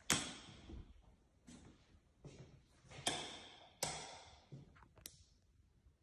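Footsteps scuffing and knocking on a bare hardwood floor in an empty room, about one step every three-quarters of a second, with a few louder, sharper steps.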